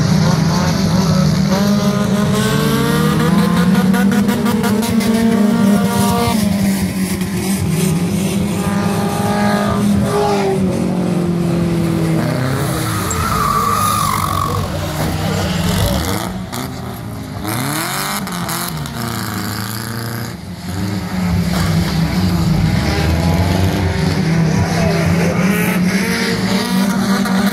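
Several race cars' engines running hard and revving as the cars are driven around the track in reverse, their pitch rising and falling as they pass, with a quieter spell a little past halfway.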